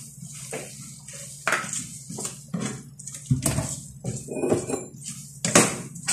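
Metal kitchen utensils and cookware clinking and scraping, in irregular knocks spaced about half a second apart, with a few louder clanks.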